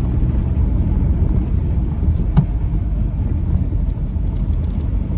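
Road and engine rumble heard inside the cabin of a 2012 Kia Carnival minivan driving at low speed on a winding mountain road, steady and deep, with one short click about two seconds in.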